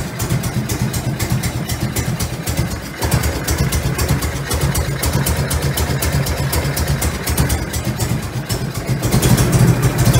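Harley-Davidson Shovelhead V-twin running at low revs with a steady, rhythmic pulse, its ignition timing retarded too far and the electronic ignition set to its slow advance curve. It grows louder near the end.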